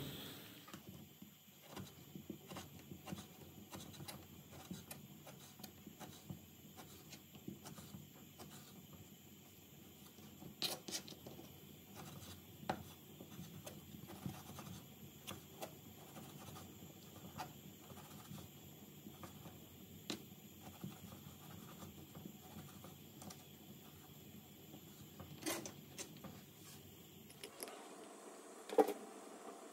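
Knife slicing guanciale on a plastic cutting board: a long, steady run of light knife strokes. Near the end, a spatula knocks against a frying pan.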